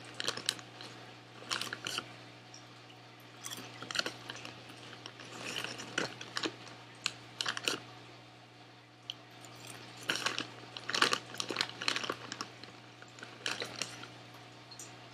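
Potato chips being crunched and chewed, crisp cracks coming in short runs with quiet pauses between, along with the crinkle of the foil chip bag as a hand reaches in.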